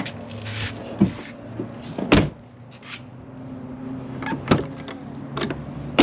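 An SUV door is shut with a heavy thud about two seconds in. Then come a few sharp clicks and clunks as the chrome exterior door handle is pulled with the doors locked, testing the newly replaced handle.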